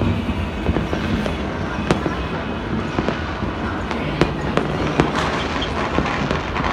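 Fireworks and firecrackers going off: scattered sharp bangs at irregular intervals, several close together at times, over a continuous low rumble.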